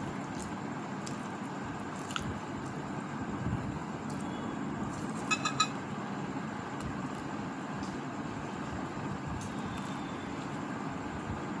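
Two people biting and chewing fried samosas over a steady background hum, with faint soft clicks. About five seconds in come two short high-pitched sounds in quick succession.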